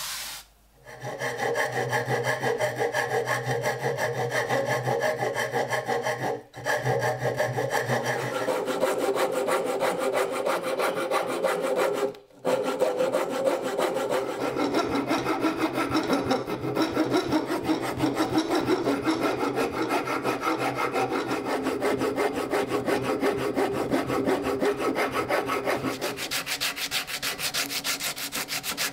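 A steel hand file rasps across the end of a wooden axe handle in quick back-and-forth strokes. Near the end it turns to finer, hissier sanding strokes.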